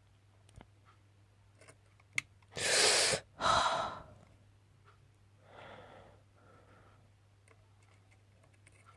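A person breathing out hard twice close to the microphone about three seconds in, with a sharp click just before, then a softer breath a couple of seconds later, over a steady low hum.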